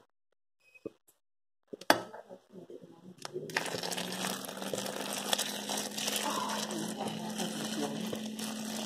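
Just-boiled water poured from a pot into a large stainless steel pot packed with leaf-wrapped bánh chưng, filling it to cover the cakes. A couple of light knocks come first, then a steady splashing pour starts about three and a half seconds in and keeps going.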